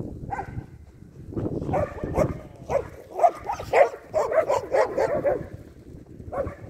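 A dog barking repeatedly, in several runs of short calls.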